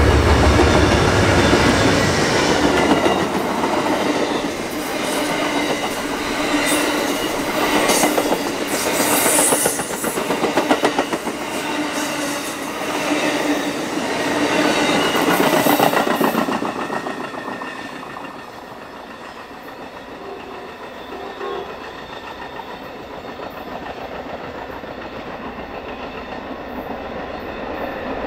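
Amtrak GE P42DC diesel locomotives passing close by, their engines loud for the first couple of seconds, then bi-level Superliner passenger cars rolling past with wheels clacking over rail joints. About 16 seconds in, the train draws away and the sound drops to a fainter, steady rumble.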